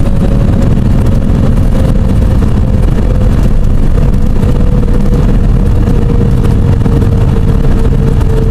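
Cessna 206 Turbo's turbocharged six-cylinder engine and propeller running at low power during the landing rollout, a loud steady drone heard from inside the cabin. A steady whine runs over it, drifting slowly lower in pitch.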